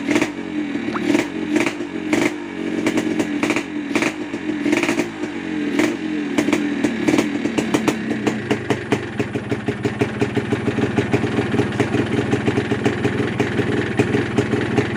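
Yamaha RX-King's two-stroke single-cylinder engine running, revving unevenly at first, then settling about halfway through into a steady, fast popping idle.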